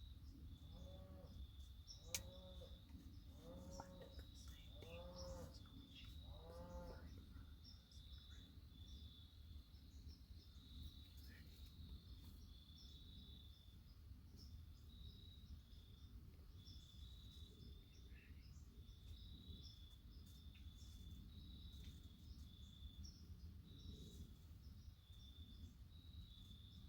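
Five short nasal 'meh' bleats about a second and a half apart in the first seven seconds, then only an insect's steady pulsing high chirp over faint low rumble.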